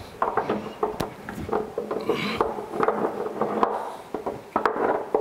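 Irregular metal clinks, knocks and rubbing as a belt-tightener part is worked by hand into the base of a surface grinder.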